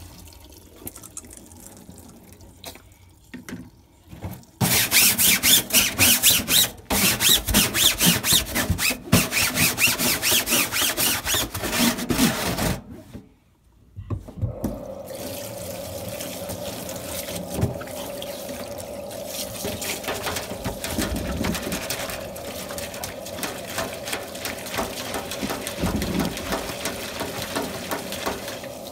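Tap water running onto an air-conditioner filter as it is rinsed. It is quiet at first, then spatters loudly for about eight seconds, stops briefly, and runs on more steadily.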